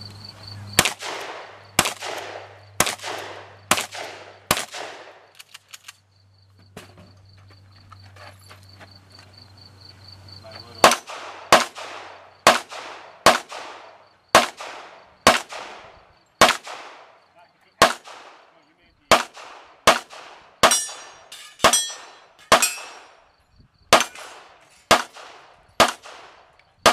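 Gunshots from a competitor's firearm at a 3-Gun match, each sharp report trailing off in an echo: five shots about a second apart, a pause of about six seconds, then a long string of about twenty shots fired at a steady, slightly quicker pace.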